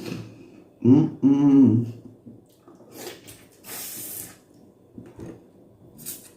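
Eating sounds at the mouth: a brief hummed vocal sound about a second in, then a short slurp about four seconds in.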